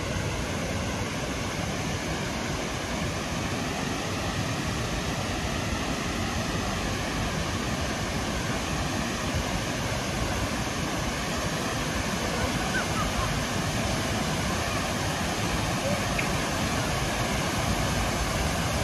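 Steady rush of water pouring down the steps of a cascade fountain, growing slightly louder near the end.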